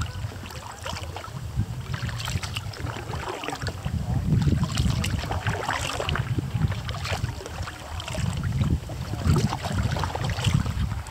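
Kayak paddle strokes splashing and dripping water, over a low rumble of wind on the microphone.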